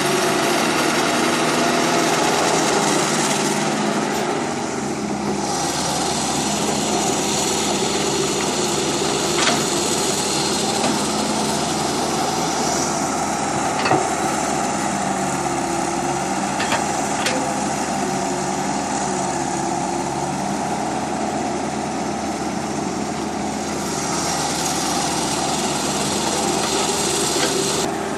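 Small electric motors and gearboxes of toy remote-control construction vehicles whirring steadily as they work sand, the whir swelling and easing over several seconds. There are a few sharp clicks along the way.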